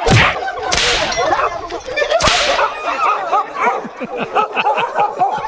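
Three sharp whip lashes, two close together at the start and a third about two seconds in, over men's shouts and cries.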